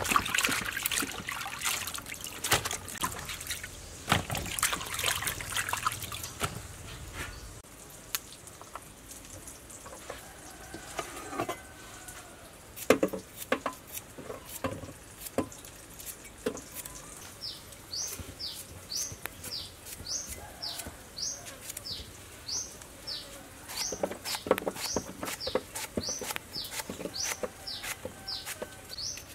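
Water splashing as vegetables are rinsed in a plastic colander for the first several seconds. Then a knife knocks on a cutting board in scattered strokes as vegetables are cut. From about the middle on, a small bird chirps, a short falling note about twice a second.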